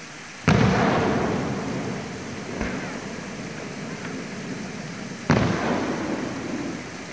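Aerial firework shells bursting: two loud booms about five seconds apart, each trailing off in an echo over a couple of seconds, with a fainter bang between them.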